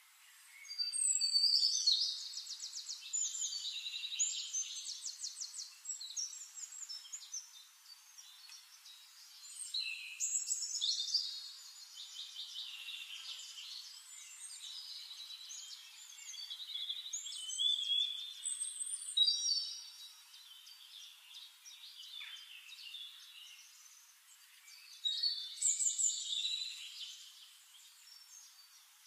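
Songbirds singing in repeated bursts of fast trills and chirps, with quieter calls in between; the loudest bursts come about a second in, around ten seconds, around seventeen to nineteen seconds, and about twenty-five seconds in.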